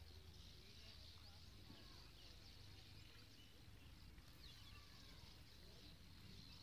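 Near silence: faint outdoor ambience with soft, high-pitched chirping throughout.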